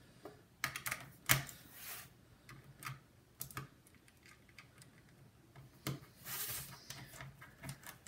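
Scattered light clicks and taps of a precision screwdriver and hands on a laptop's plastic bottom cover as its screws are driven back in, with a short scrape about six and a half seconds in.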